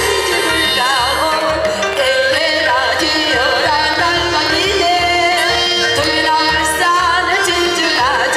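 A woman, a pansori singer, singing with wide vibrato into a microphone over instrumental accompaniment with a pulsing low beat.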